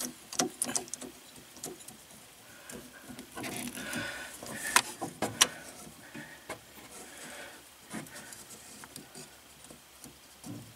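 Scattered light clicks and scrapes of a mini tubing cutter being fitted onto a copper water line and worked by hand, with two sharper clicks about five seconds in.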